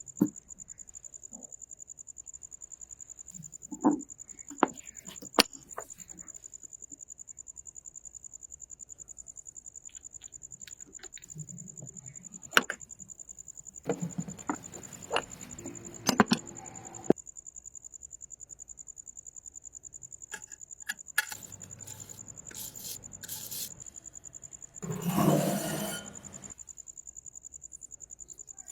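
Crickets chirping steadily in a high, even pulse. Scattered sharp clicks and knocks sound over it, with a louder rustling noise lasting about a second near the end.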